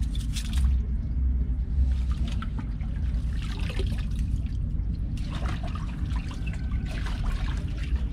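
Water splashing, pouring and dripping as a boat engine's raw-water strainer basket, a metal cylinder, is dunked in lake water and lifted out to rinse out rotting weeds, several times over. A steady low rumble runs underneath.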